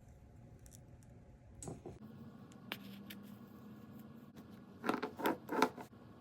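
Small hard clicks and scrapes of a tool working at the edge of an iPhone screen as it is pried away from the heated adhesive, with a quick run of louder scraping clicks near the end.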